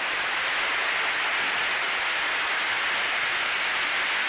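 About 10,000 glass marbles from a tipped container pouring and rolling together down a wide sloped tray, a dense, steady rushing clatter.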